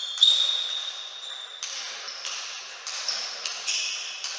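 Table tennis rally: the celluloid ball is struck back and forth by the rackets and bounces on the table. The hits are sharp and come every half second to a second, each followed by a ringing tone echoing in a large hall.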